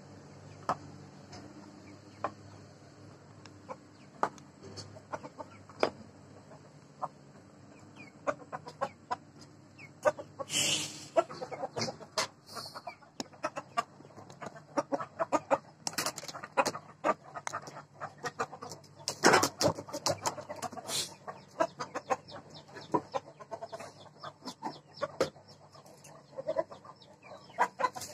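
Domestic chickens clucking. The short sharp sounds are sparse at first and thicken into a busy patter about eight seconds in, with two louder rushes of noise, one around ten seconds in and one around nineteen.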